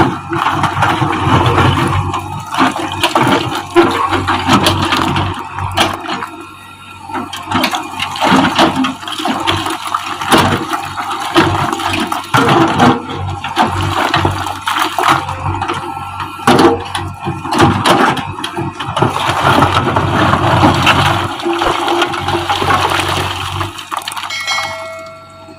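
JCB backhoe loader at work: its diesel engine runs as a low steady hum under a loud rushing, crashing noise of earth and broken wall material, with many knocks. The engine hum stops near the end.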